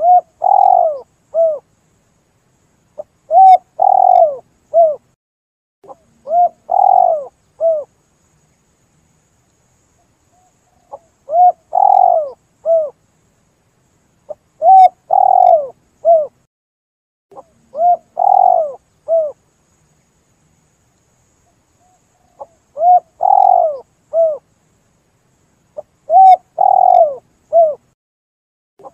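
Spotted dove (tekukur) calling, used as a lure call. It gives repeated three-part coos, each a brief note, a long coo and a short coo. The calls come in runs of three, with a pause of a few seconds between runs.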